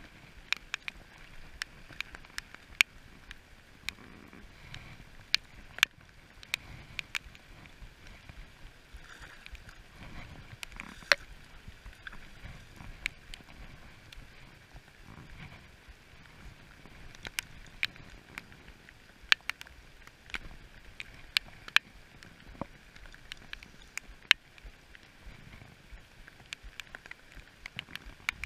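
Rain: irregular sharp ticks of drops hitting the body-worn camera, a few a second, over a steady hiss of rain falling on the river.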